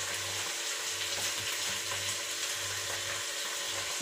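Ampalaya (bitter gourd) with egg and prawn cooking in an uncovered pot, giving a steady, soft frying sizzle. A low hum comes and goes underneath.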